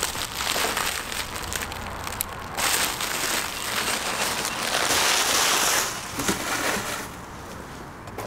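Protective packaging wrap crinkling and crackling as it is pulled off a new motorcycle windshield, loudest in the middle.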